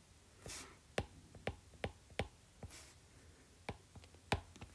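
Faint, irregular clicks of a stylus tapping and stroking a tablet screen during handwriting, with a soft brush of hiss twice.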